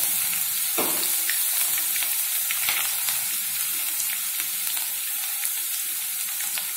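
Coarsely crushed garlic sizzling in hot oil, in a tempering of mustard and cumin seeds in a non-stick kadai. It is a steady hiss with fine crackling pops, a few of them stronger about a second in.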